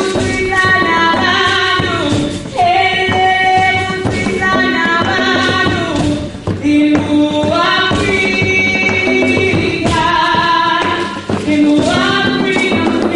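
A group of voices singing together in harmony, with held notes and sliding phrases, over sharp percussion hits.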